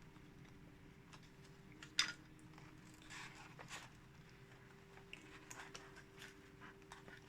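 Faint clicks and taps of small parts and tools being handled during a motherboard repair, with one sharp click about two seconds in and a short clatter a second later, over a steady low electrical hum.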